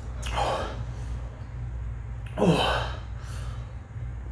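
A man gasping and exhaling sharply twice, about half a second in and more loudly about two and a half seconds in, the second ending in a brief falling groan: reacting to the burn of a very hot chili sauce.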